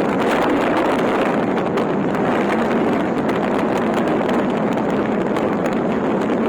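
Off-road vehicle driving on desert sand: a steady, loud rush of engine and tyre noise mixed with wind buffeting the microphone.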